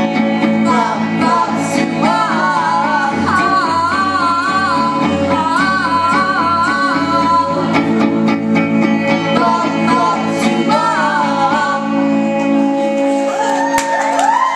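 Live band playing: a woman singing held, wavering notes over electric guitar and a steady low bass, with drum hits. The bass drops out near the end.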